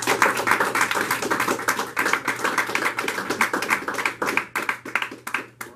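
Audience applauding: dense clapping that thins out to a few scattered claps near the end.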